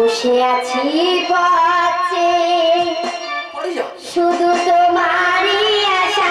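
A high female voice singing a Bengali Manasa song with musical backing, in long held notes that waver and slide between pitches, with a short break between phrases about four seconds in.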